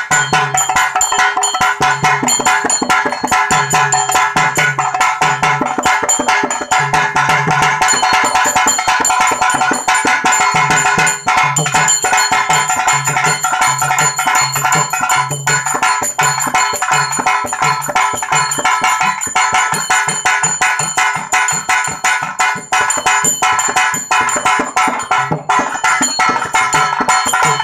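Instrumental music: a hand-played, rope-laced, double-headed barrel drum beats a steady rhythm over sustained held keyboard notes.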